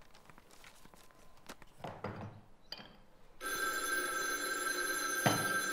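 An old desk telephone's bell ringing: a loud steady metallic ring that starts about three and a half seconds in, with a sharp click near the end.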